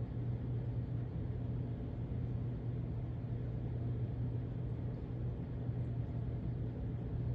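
Steady low electrical hum with a faint even hiss from an aquarium's running pump motor, unchanging throughout.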